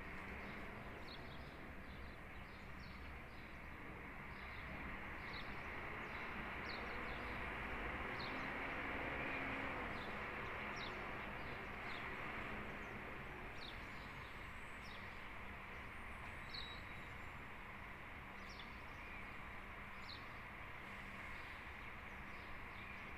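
Small birds chirping in short, scattered calls over a steady background rumble and hiss that swells around the middle.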